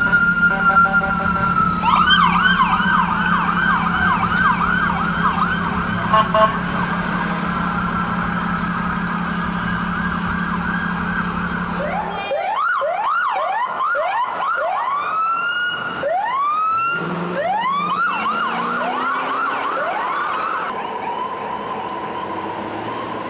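Emergency vehicle sirens. An electronic siren holds a steady tone and then switches to a fast yelp over a low steady hum. Halfway through, the sound changes abruptly to other sirens yelping and wailing over one another as responding vehicles pass.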